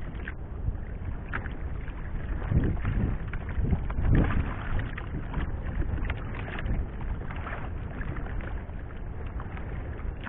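Sea water sloshing and slapping against the hull of a small fishing boat, with wind noise on the microphone. There are a few louder sloshes around the middle.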